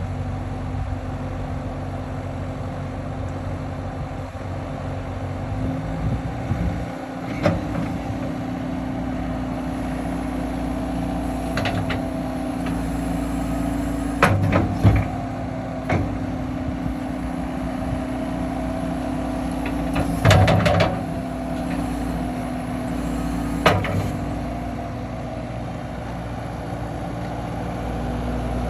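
John Deere 324E skid steer's diesel engine running steadily, with several sharp knocks and clanks scattered through it.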